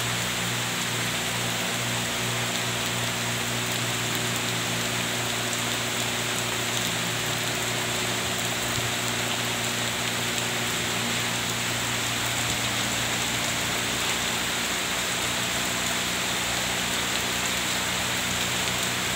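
Steady rain falling on trees and grass, an even, unbroken hiss.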